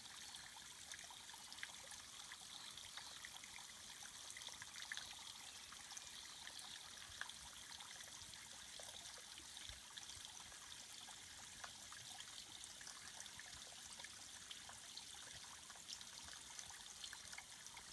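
Faint, steady trickling of tiny waterfalls running down a mossy rock face, with small drips ticking throughout.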